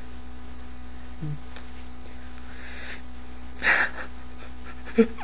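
A man's short, sharp exhale about three and a half seconds in, over a steady low electrical hum, with a brief murmur about a second in.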